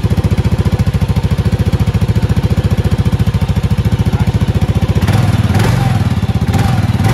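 Kawasaki dual-sport motorcycle's single-cylinder engine with its stock exhaust, running just after a cold start with a steady, rapid pulsing beat. Twice near the end it briefly grows louder.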